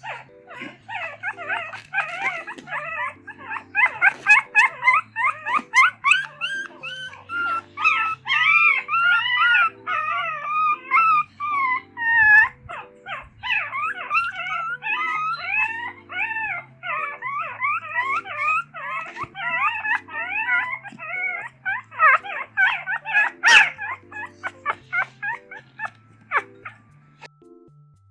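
Puppies whimpering, yipping and howling in rapid, high-pitched, overlapping cries, over a steady electric-piano backing track.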